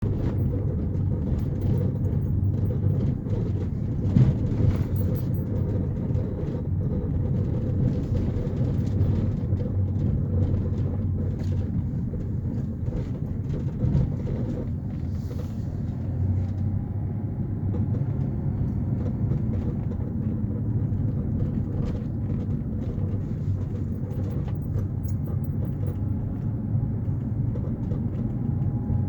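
Honda vehicle running with a steady low rumble, a faint steady tone and scattered light clicks: an unexplained noise the owner is trying to identify.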